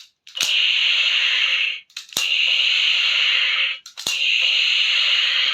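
Toy projection gun firing its electronic sound effect three times from a small built-in speaker: each shot opens with a click and gives a steady buzzing electronic tone about a second and a half long.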